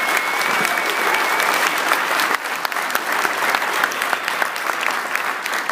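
Crowd applauding: dense, loud clapping from many hands, easing off near the end.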